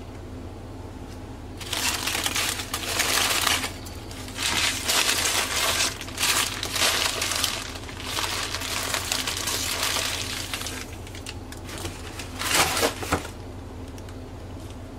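Crumpled newspaper and aluminium foil packing being gathered up and stuffed into a cardboard shipping box: rustling and crinkling in four bursts, the loudest near the end.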